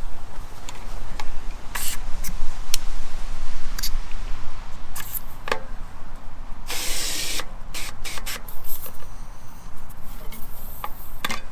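CO2 cartridge inflator releasing gas into a freshly plugged tubeless mountain bike tyre: hissing, with a loud burst of hiss about seven seconds in, among scattered sharp clicks and taps.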